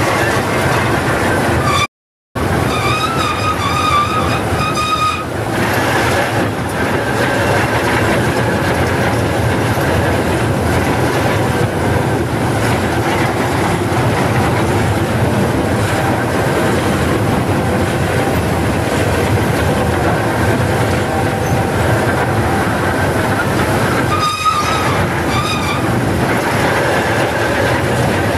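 Lorain 80-J cable shovel heard from inside its cab: the diesel engine running under load with steady clatter from the gears and cable drums as the machine digs. A high squeal comes in twice, a few seconds in and again near the end, and the sound drops out for an instant about two seconds in.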